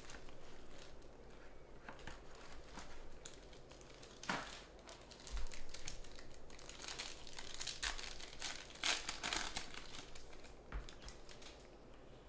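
Plastic wrapping on trading cards crinkling and rustling as it is pulled off and torn open, in irregular crackles that come louder about four seconds in and again between about seven and nine and a half seconds in.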